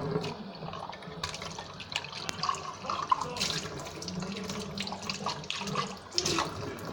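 Water running from a tap into a sink, with scattered small clicks and knocks.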